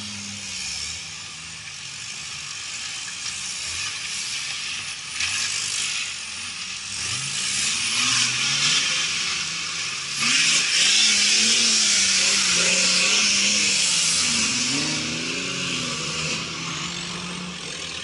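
Engines of off-road 4x4 trial vehicles revving hard as they climb through a rocky ditch, the pitch rising and falling again and again. The sound is loudest from about ten seconds in, for several seconds, while two of the vehicles work through the ditch together.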